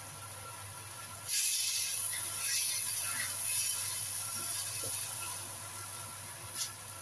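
Stir-fry sizzling in a wok, jumping louder about a second in as a spatula turns the bitter melon, beef and tofu skin through the soy sauce, then easing off slowly. A short sharp tap near the end.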